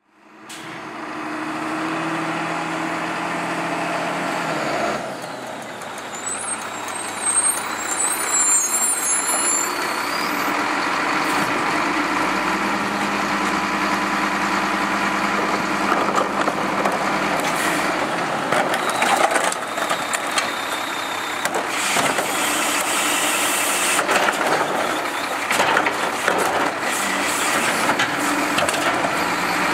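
Engine of a Wittke Express manual side-load garbage truck running steadily as the truck works a curbside recycling stop. In the second half, repeated knocks and clatter come from a plastic recycling cart being handled at the truck's side-mounted cart tipper.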